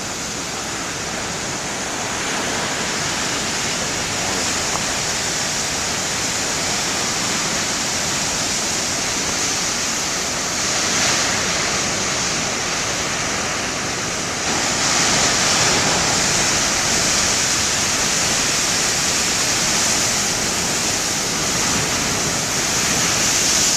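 Heavy ocean surf breaking, a steady roar of rushing water that swells louder about fourteen seconds in as a bigger wave comes through.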